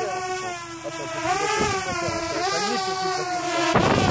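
Parrot Bebop quadcopter drone hovering overhead, its four propeller motors making a steady whine whose pitch wavers and shifts as it holds its position. Near the end a loud rushing noise joins in as the drone comes close above.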